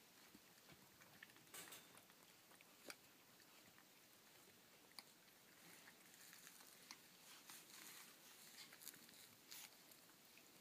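Near silence, with faint scattered clicks and rustles.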